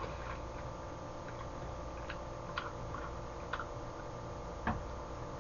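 Quiet room tone with a steady hum, broken by a few faint, scattered clicks from eating with chopsticks, the clearest about four and a half seconds in.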